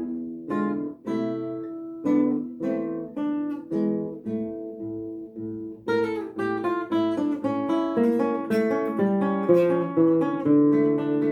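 Classical guitar played solo: a slow plucked melody over picked accompaniment notes, each note ringing and dying away. The notes thin out and let ring for a couple of seconds near the middle, then denser picking resumes.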